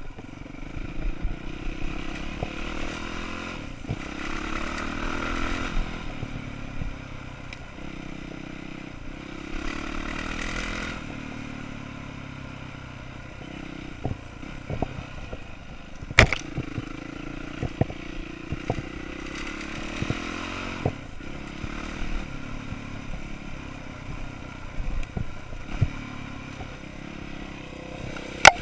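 Dirt bike engine running under load, rising and falling with the throttle several times, with knocks and rattles from the bike over rough ground. Two sharp bangs stand out, one about halfway through and one at the very end.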